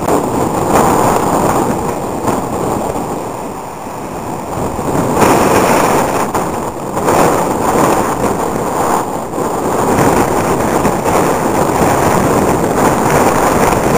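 Strong gusty wind buffeting the camera's microphone: a loud, uneven rush that swells and eases with each gust, strongest about five seconds in.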